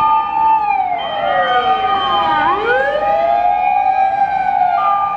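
Japanese fire engine sirens: one holds a steady wail whose pitch steps down slightly within the first second, while a second siren winds down and then back up once near the middle.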